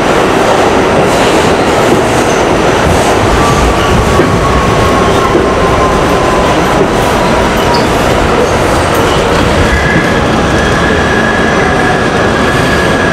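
R68 subway car running through the tunnel, heard from inside the car: a loud, steady rumble of wheels and running gear. A faint tone slides down in pitch midway, and a steady high squeal comes in near the end as the train pulls into the station.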